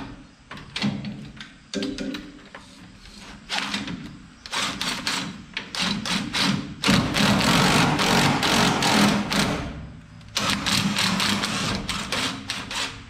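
Mechanical working noise as a small jack is used to force a part off the front axle of a 1949 Studebaker one-ton truck. A run of quick clanks and knocks is densest and loudest from about seven to ten seconds in.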